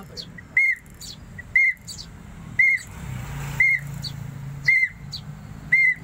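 A short, clear whistled note that rises and falls, repeated about once a second, seven times in a row: a call whistle (priwitan) given to a fallen fledgling so it learns to recognise its feeder. A low steady hum runs underneath.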